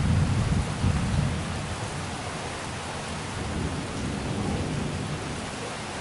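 Thunder rumbling low and fading away over the first two seconds or so, over the steady hiss of rain.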